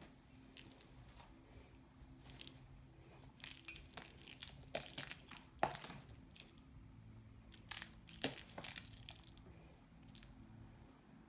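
A cat's paws and claws clicking and scraping on a laptop keyboard while it wrestles a fuzzy toy: irregular taps and short rustles, a few sharper clacks standing out.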